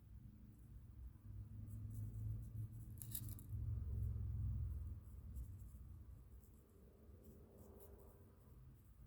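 Coloring strokes scratching on paper, with scattered soft clicks and a low rumble that is loudest in the first half.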